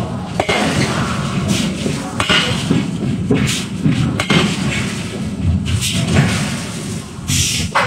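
Heavy metal thuds and clanks from forging machinery working a red-hot blank, several sharp impacts about a second apart over a constant rumble of shop machinery.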